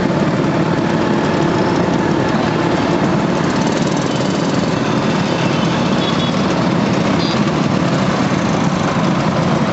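Several vintage two-stroke scooter engines running at once, a steady mixed engine din at low speed.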